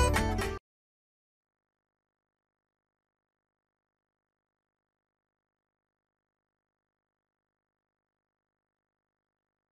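Acoustic guitar background music that cuts off abruptly about half a second in, followed by dead digital silence.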